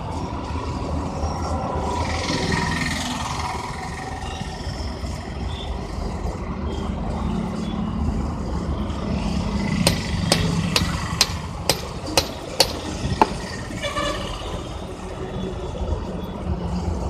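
Steady rumble of road traffic, with a quick run of about seven sharp metallic taps a little past the middle.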